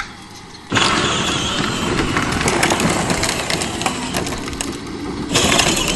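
Child's battery-powered ride-on toy truck driving over a concrete driveway, its hard plastic wheels making a rolling noise full of small clicks. The noise starts suddenly about a second in and gets louder and brighter near the end.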